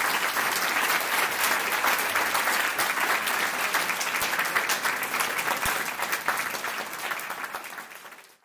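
Audience applauding steadily after a talk, fading out in the last second or so.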